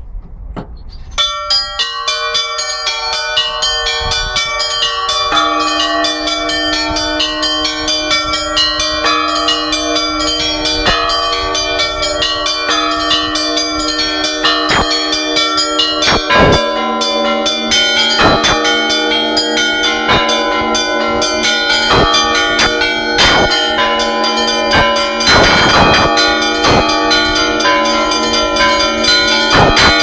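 Russian Orthodox bell ringing (zvon) by one ringer on a set of hung bells: the small bells are struck quickly by ropes to carry the melody, and deeper bells join in. A deeper bell enters about five seconds in and a still heavier, lower one about halfway through, and the ringing grows louder.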